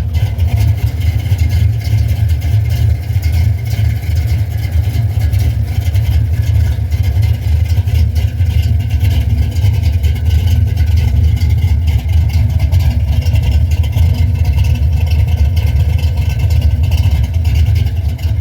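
Engine with a B cam idling steadily, a deep even rumble out of a new 2.5-inch dual exhaust with an H-pipe and Flowmaster Super 10 mufflers that dump ahead of the rear axle.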